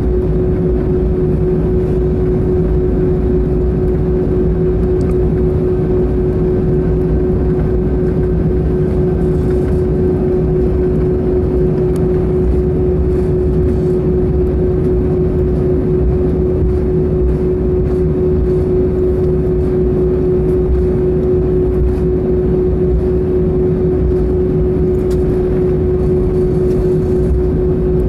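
Airbus A320's turbofan engines running at taxi power, heard from inside the cabin over the wing: a steady drone with a constant hum tone and a low rumble.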